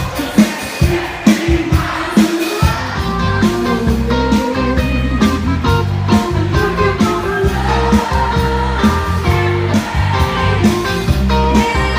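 Live band playing through a stage PA: drum beats alone at first, then about three seconds in the bass, other instruments and singing come in together and carry on steadily.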